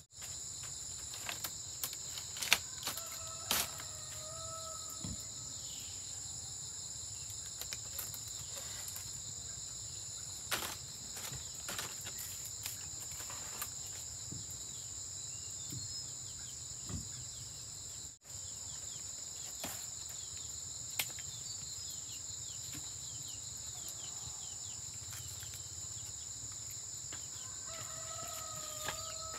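Steady high-pitched chorus of insects, with scattered sharp clicks and a brief call heard once near the start and again near the end.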